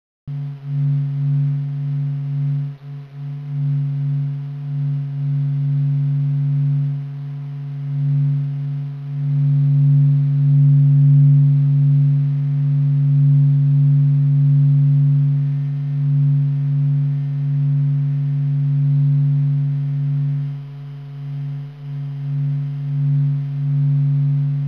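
Sonified helioseismology data from the SOHO and SDO missions: acoustic pressure waves resonating inside the Sun, shifted up in frequency into a low, resonant pulsing hum. It begins abruptly and swells and fades slowly in loudness.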